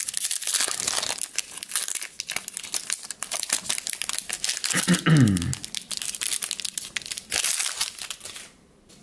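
Foil wrapper of a Pokémon Sun and Moon Ultra Prism booster pack crinkling as it is torn open and handled, a dense run of crackles that dies away near the end.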